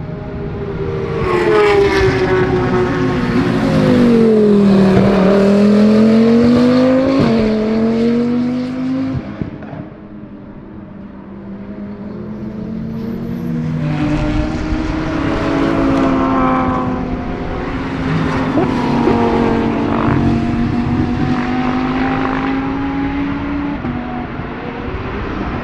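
GT3 race car engines at high revs going past on track, their pitch falling and climbing again, with a sudden pitch jump from a gear change about seven seconds in. After a brief drop near ten seconds, more cars come by through the second half.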